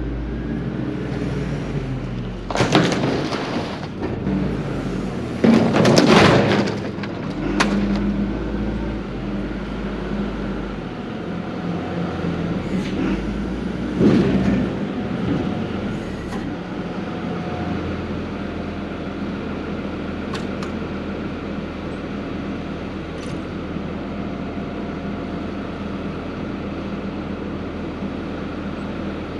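Diesel engine of a Cat loader running steadily, with several loud metal clanks and bangs in the first half, as the loader handles the cone tanks.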